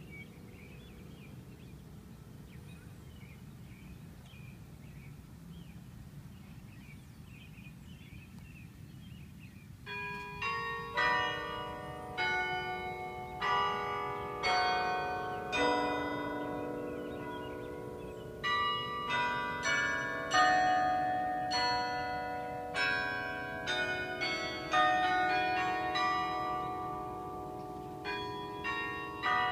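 Carillon bells in a campanile tower being played. After a pause of about ten seconds in which only a faint lingering bell hum is heard, a tune starts: notes struck one after another and in chords, each bell ringing on under the next.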